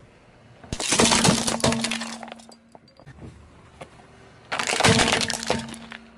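Car tyre rolling over and crushing plastic toys: two loud bursts of plastic cracking and snapping, a toy hammer about a second in and a toy garbage truck about four and a half seconds in, each breaking apart under the wheel.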